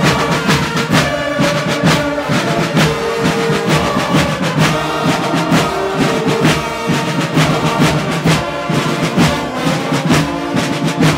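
Dunkirk carnival band playing: brass holding a tune over a steady, regular drum beat.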